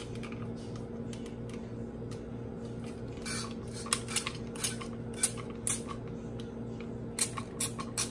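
Olive oil spritzed from a trigger-spray bottle into a hot cast-iron skillet: a string of short, irregular spray hisses and sizzles starting about three seconds in, over a low steady hum.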